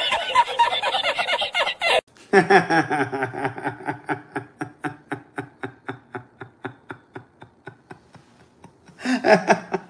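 Two men's hearty laughter, one after the other. The first laughs loudly and is cut off about two seconds in. The second laughs in a long run of quick, even "ha-ha" pulses, several a second, that slowly fade, then breaks into louder laughter again near the end.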